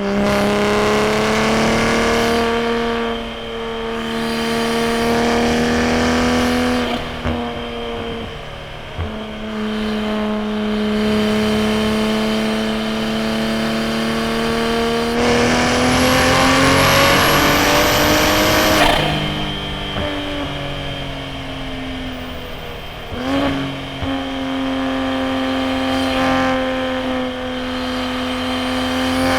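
Turbocharged B58 3.0-litre straight-six of a Toyota A90 Supra through a straight-piped titanium single-exit exhaust, pulling under throttle on a mountain road. The engine note climbs slowly in long pulls and drops back several times; the pull about halfway through is the loudest, with a rising high whine on top before the note falls away.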